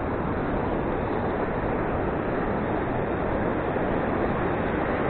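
Steady roar of ocean surf, with wind on the microphone.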